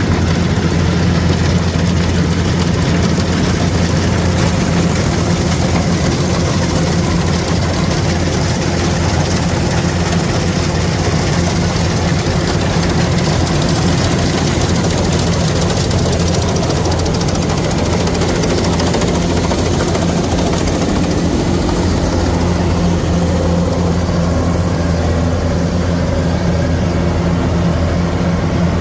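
Kubota rice combine harvester's engine running at a steady speed, a constant low drone that holds the same pitch throughout.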